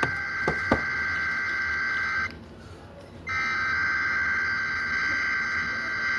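Emergency Alert System SAME header: bursts of buzzing two-tone digital data. One burst ends about two seconds in, and after a pause of about a second another runs for about three and a half seconds. A couple of sharp clicks come near the start.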